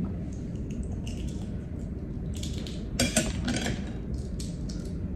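Light clicks and crackles of balut eggshell being peeled by hand and picked at with a small metal pick, with a louder cluster of cracks about three seconds in, over a low steady hum.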